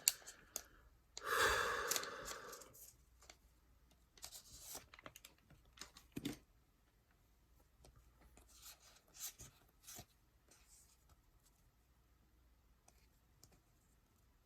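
A foil booster pack tearing open about a second in, followed by faint scattered rustles and ticks of trading cards being handled.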